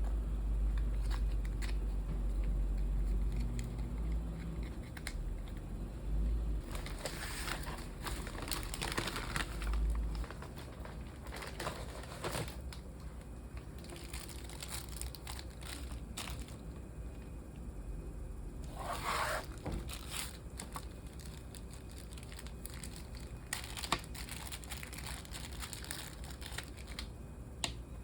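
Intermittent crinkling and rustling, like packaging or small objects being handled, over a low rumble that stops about ten seconds in.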